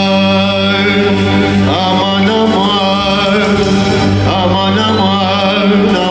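Male singer in a melismatic Arabic mawwal, long held notes bent and ornamented, over an electronic keyboard accompaniment holding steady sustained notes.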